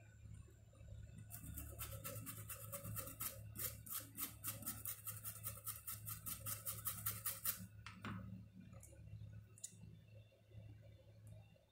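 A small stiff-bristled brush scrubbing a phone's circuit board in quick back-and-forth strokes, about five a second, for some six seconds, then stopping, with one more stroke just after. A low steady hum runs underneath.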